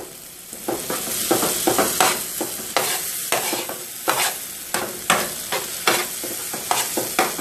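Eggs and chopped tomato sizzling in a frying pan while a utensil stirs and scrapes them, about two strokes a second, for Mexican-style scrambled eggs.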